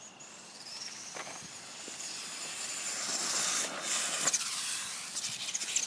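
Electric RC car's motor whining at speed, its pitch gliding up and down, over a hiss of tyre noise, with a couple of short knocks.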